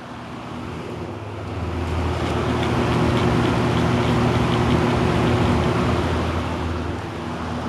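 Vintage 20-inch Galaxy box fan running: its blades rush air over a steady low motor hum. It grows louder over the first couple of seconds as it picks up speed, then eases slightly near the end.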